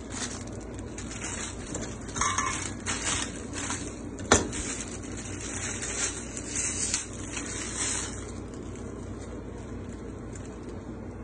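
Kewpie mayonnaise squeeze bottle squirting onto chopped tuna in a stainless steel bowl, in several short hissy squirts, with one sharp click about four seconds in. A steady kitchen hum runs underneath.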